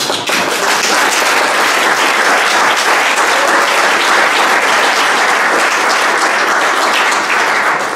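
Audience applauding: a dense, steady clatter of many hands clapping that eases off at the end.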